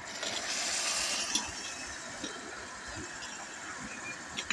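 Aluminium cookware being handled as a pot lid is taken off: a brief hissing rush about half a second in, then a few light metal clinks over a steady background hum.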